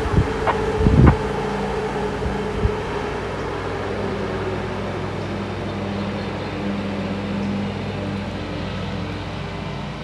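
Diesel locomotive engine running steadily with a low, even hum, with a few sharp clicks about a second in.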